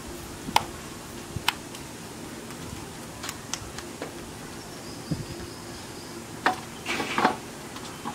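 Roti dough being patted and shaped between the palms: scattered sharp slaps and clicks, with a cluster of louder knocks and clinks of pans near the end.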